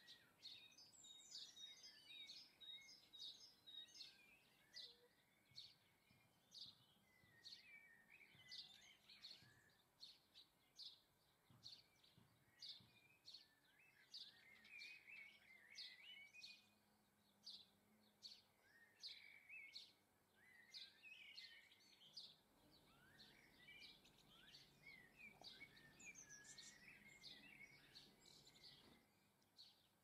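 Small garden songbirds calling faintly: a steady run of short, high chirps, about one or two a second, mixed with lower twittering phrases.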